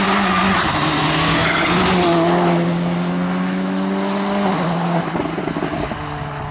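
Volkswagen Polo rally car's engine pulling hard through a bend and away, with tyre noise on the wet tarmac over the first couple of seconds. The engine note holds steady, steps down in pitch about four and a half seconds in, and then fades as the car goes away.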